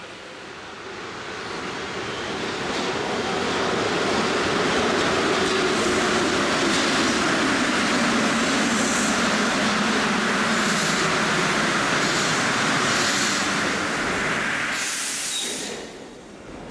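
Paris Métro MP59 rubber-tyred train running into an underground station: its rumble builds and holds, with a low tone that falls in pitch as it slows. Short high hisses come from the brakes, and a louder burst of hiss comes about fifteen seconds in, after which the sound drops away.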